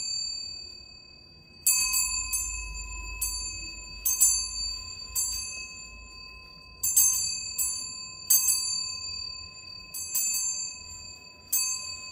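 A small metal bell struck about a dozen times at an uneven pace, roughly once a second, each strike ringing out with the same bright tones and fading.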